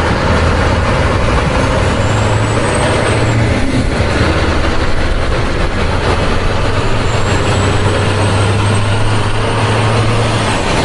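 Heavy truck's diesel engine running steadily with a deep hum, and a faint high whine rising and falling twice.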